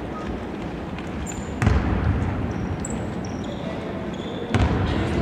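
A basketball bouncing on the hardwood floor of a large sports hall: two hard bounces about three seconds apart, each leaving a low echo. A few short high sneaker squeaks come between them.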